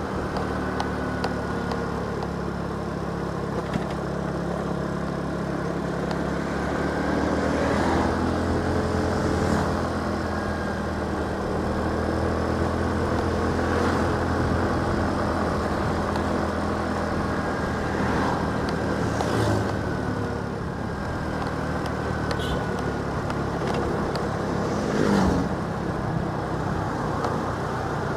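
Motorcycle engine running steadily at cruising speed with the rush of the ride, its pitch drifting slightly up and down, and a few short thumps along the way from the uneven road.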